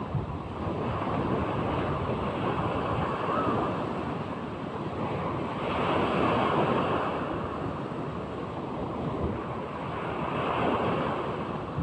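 Big sea waves breaking and washing in, the surf rising and falling every few seconds, with wind buffeting the microphone.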